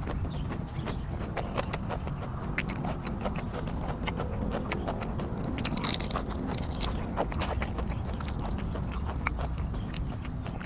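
Close-up mouth sounds of chewing raw shrimp and fresh leafy greens: wet smacks and small crunches, many short clicks. About six seconds in there is a louder brief rustle and rip as a bunch of fresh herbs is torn apart by hand.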